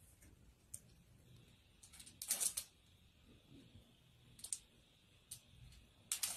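Cat's claws scratching and scrabbling on a smooth painted wall as it clings and slides down: scattered short scratchy clicks, loudest in a cluster about two seconds in and again near the end.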